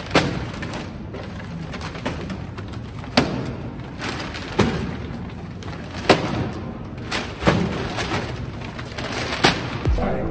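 Paper grocery bags being lifted out of a car trunk and set down, with rustling and about six separate thumps a second or two apart.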